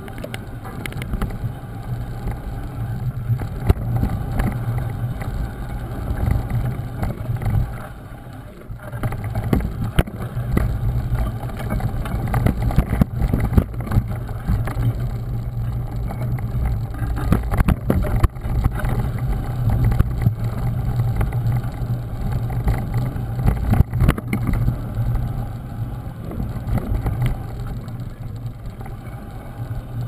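Mountain bike riding a rough dirt single track, heard from a camera mounted on the bike: a steady low rumble of tyres and wind on the microphone, with frequent clicks, knocks and rattles as the bike goes over bumps. The rumble eases briefly about eight seconds in.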